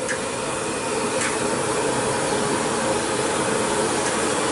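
Field-kitchen cooking on gas burners and a wide wok of frying oil: a steady hissing roar, with a couple of short ticks near the start.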